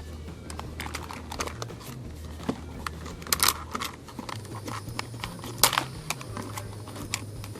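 Toy packaging and a plastic toy being handled and pulled apart: crinkling with scattered small clicks, and two louder snaps about three and a half and five and a half seconds in, over a steady low hum.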